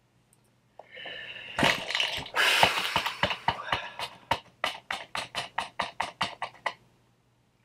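A man crying: about a second in, a short high whimper, then a heavy rush of breath, then a run of quick sobbing gasps and sniffs, about three a second, that slowly fade out.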